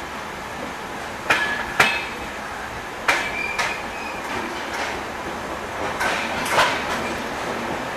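Train wheels running slowly over rail joints under a passenger coach: pairs of sharp clicks about half a second apart come three times, over a steady rolling rumble, with a faint brief squeal from the wheels a little after the second pair.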